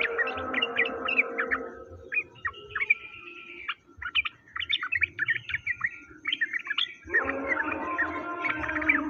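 A bird-song masteran recording: many rapid, high bird chirps and tweets follow one another without pause. They run over a steady, droning layered tone that fades out about two seconds in and comes back sharply near the end.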